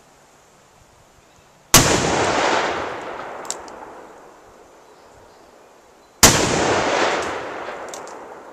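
Two shots from a Smith & Wesson 460 XVR magnum revolver, about four and a half seconds apart, each a sharp crack followed by a long echoing rumble that fades over two to three seconds.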